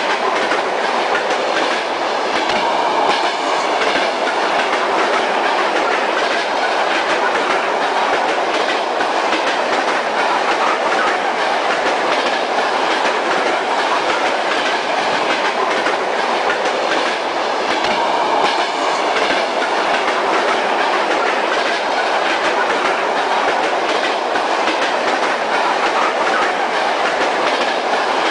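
Metro train running at speed, heard from inside the passenger car: a steady noise of wheels on rails with faint regular clicks.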